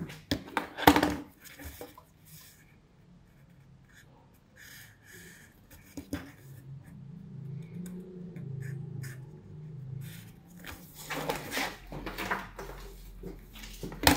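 Hands working a cardboard shoe pattern with a marker pen: scattered taps and knocks, the loudest about a second in, and marker strokes scratching across the cardboard. Near the end there is a cluster of rustles and clicks as a plastic square ruler is handled over the pattern.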